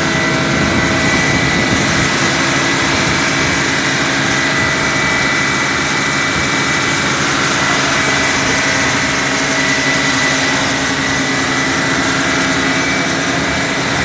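A large engine running steadily at an unchanging pitch, with a high whine over a dense rumble.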